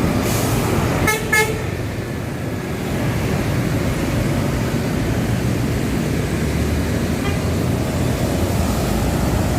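Busy city road traffic with engines running, and a vehicle horn giving two short toots about a second in. A heavy engine rumble grows louder near the end.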